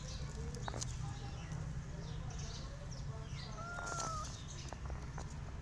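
Outdoor ambience with birds chirping faintly and a clearer short call about four seconds in, over a steady low rumble.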